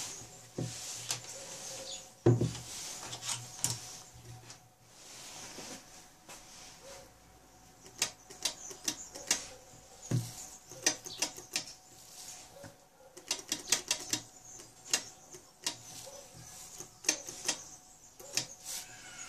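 Sharp clicks from the signal relays and push buttons of a DIY hi-fi input/output selector, each switch setting off a quick cluster of clicks as its Takamisawa relays change over. A thump about two seconds in comes from the metal box being handled and set down.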